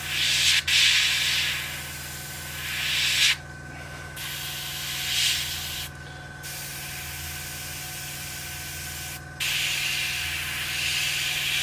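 Airbrush spraying paint along panel lines in short passes: a steady hiss of air that stops briefly three times and starts again.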